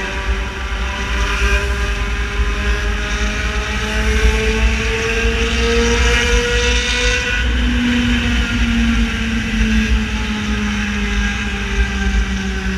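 Yamaha XJ6 motorcycle's inline-four engine running under way with a loud exhaust note: the pitch climbs steadily for about seven seconds, then falls away as the bike eases off. A strong low rumble runs underneath.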